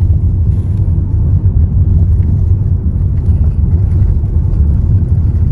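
Steady low rumble of a car driving on the road, heard from inside the cabin: engine and tyre noise.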